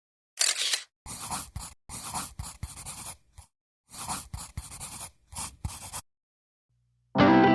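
A sleeping cat snoring heavily, a big snore. It comes as a run of short, rasping breaths, each under a second long, with abrupt silent gaps between them.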